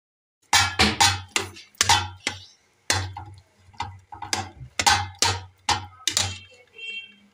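Metal slotted skimmer spoon knocking and scraping against an aluminium pot while mashing boiled bottle gourd: a quick, uneven run of about fifteen clanks starting about half a second in, with a faint ring from the pot near the end.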